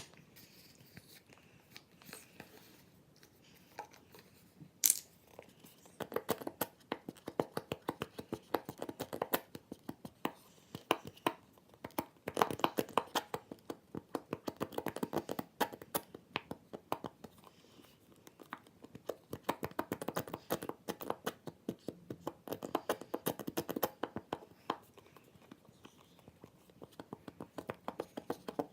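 Homemade shampoo slime being squished and worked, making wet, sticky crackling and clicking in irregular bursts that start about six seconds in, after a few single clicks.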